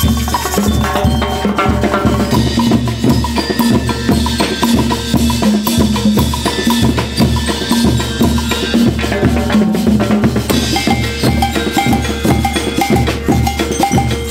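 School marching-style rhythmic band playing: a drum kit, bass drums and snare drums keep a steady dance beat while a pitched melody runs over it.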